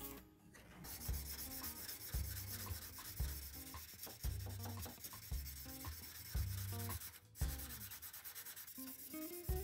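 Hand-sanding a steel knife blade: a flat abrasive stick is rubbed back and forth along the clamped blade. It polishes the blade's surface, with a steady scratchy hiss that starts about a second in.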